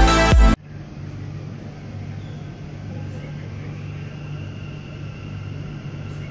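Electronic intro music cuts off about half a second in, giving way to the steady hum and rumble of a Namma Metro train heard from inside the carriage, with a faint whine rising slightly in the middle.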